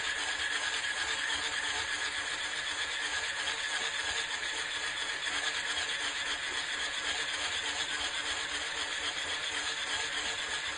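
Electric hand mixer running steadily with a steady whine, its whisk beaters whipping a thick cream cheese and icing sugar filling.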